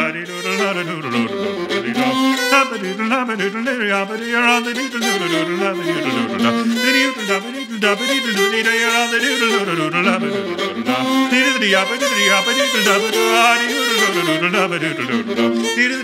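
A fiddle playing an unaccompanied melody, its notes sliding and wavering with ornaments, often sounding two strings together.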